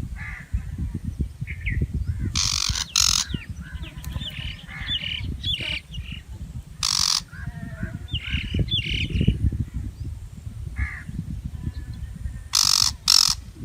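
Shrike giving harsh, rasping calls: a pair, then a single, then another pair. Short higher chirps and whistles come in between, over a constant low rumble.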